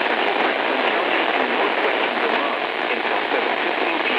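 Steady static hiss from a radio receiver with no program audio coming through, even and unbroken and cut off above and below like sound through a radio channel.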